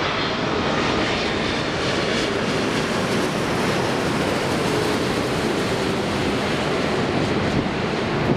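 Boeing 747's jet engines, a steady, unbroken noise as the airliner passes on its landing approach, with a faint high whine in the first second or so.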